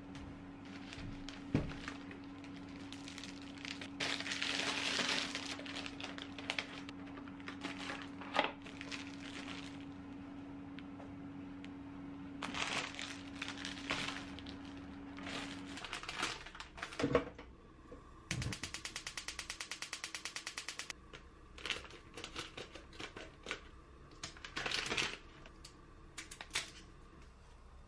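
Plastic food packaging crinkling and rustling as groceries are handled and set down on a table, over a steady low hum that stops about 16 seconds in. About 18 seconds in comes a rapid even run of ticks for a couple of seconds, and near the end kitchen scissors snip through dried kombu.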